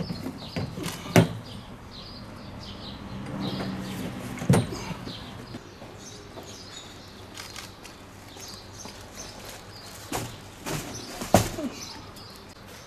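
Several sharp knocks and clunks from a minibus's doors and cargo being handled, over small birds chirping.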